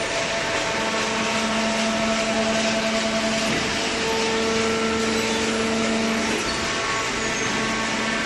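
Vertical cardboard baler's hydraulic power unit running: a steady machine hum and whine, its tones shifting a couple of times.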